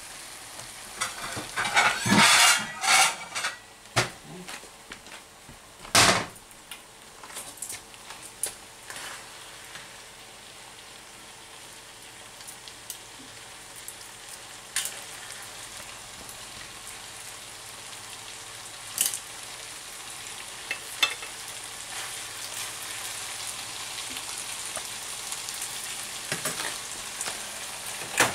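A pan of linguine and clam sauce sizzling on the stove, with clinks and clatters of metal tongs against the pan and a plate as the pasta is served. The clatter is busiest about two to three seconds in, with a sharp knock at about six seconds, then only scattered light clicks over the sizzle.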